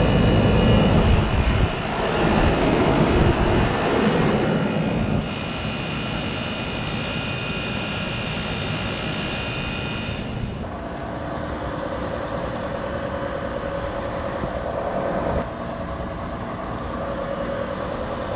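Trane XB series central air conditioner condensing units running in cooling mode: a steady fan rush with compressor hum and several steady tones. The balance shifts abruptly a few times, louder and deeper in the first two seconds and thinner and more tonal from about ten seconds in.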